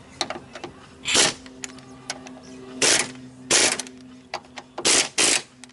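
Ratchet wrench clicking in about five short strokes, tightening the door hinge bolts with a few sharp metal clicks between them, over a steady low hum.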